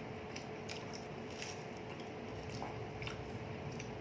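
People chewing big mouthfuls of chicken sandwich, with faint wet mouth clicks scattered through, over a faint steady hum.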